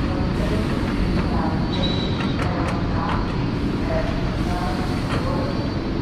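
Train moving through the station with a steady, loud rumble, a brief high-pitched squeal about two seconds in, and a few light clicks.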